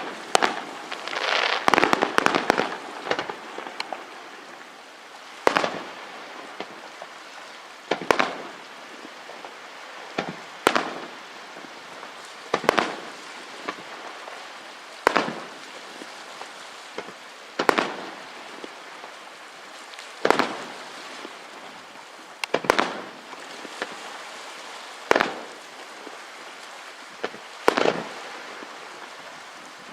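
Aerial firework shells bursting: a rapid string of crackling reports in the first few seconds, then single loud bangs at a steady pace of about one every two and a half seconds, each trailing off.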